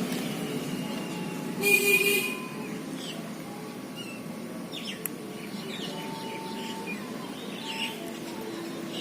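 Birds chirping, with one louder call about two seconds in and scattered short calls after.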